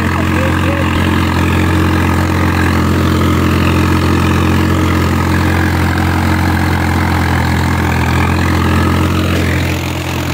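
Swaraj 855 FE tractor's three-cylinder diesel engine running steadily while pulling an 18-disc harrow; the engine note eases slightly near the end.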